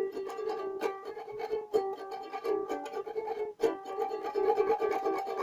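Ukulele playing an instrumental passage: a quick run of plucked notes mixed with short strums.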